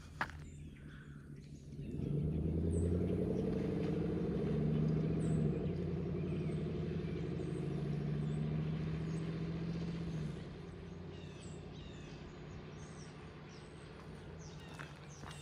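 Engine drone, a steady low hum that comes in about two seconds in and drops away after about ten seconds, with small birds chirping.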